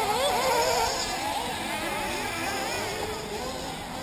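Several 1/8-scale nitro RC buggy engines racing, their high whine rising and falling as they accelerate and ease off around the track, loudest in the first second.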